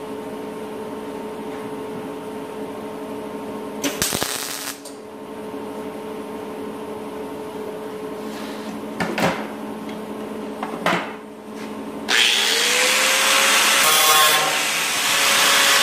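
Angle grinder with a thin cutting wheel running with a steady whine, touching the metal briefly a few times. Near the end it cuts into the sheet-steel panel with a loud, harsh grinding, making a straight 90-degree cut along the panel edge.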